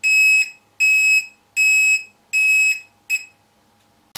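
Handheld air quality monitor's alarm beeping: a high electronic beep repeated a little faster than once a second, stopping about three seconds in with a short final beep. The alarm signals the monitor's 'Pollution' level, set off by a rising formaldehyde (HCHO) reading.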